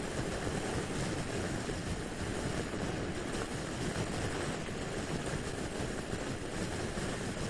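Steady rush of wind and road noise on an action camera's microphone while riding a scooter at motorway speed, with no distinct engine note standing out.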